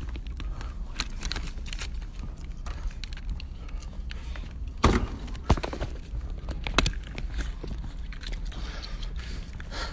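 Handling noise from a phone being carried and moved about: rubbing and scattered clicks over a low rumble, with a few louder knocks about five and seven seconds in.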